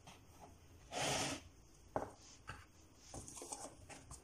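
A metal spoon tipping baking powder into a plastic mixing bowl of semolina and flour with a whisk in it. A short rush of noise comes about a second in, then a sharp click and a few light taps and ticks of the spoon against the bowl and whisk.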